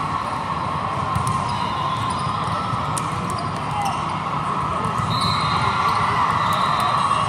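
Indoor volleyball play in a large, echoing hall full of courts: sharp ball strikes and thumps and a few short sneaker squeaks over a steady din of many players and spectators.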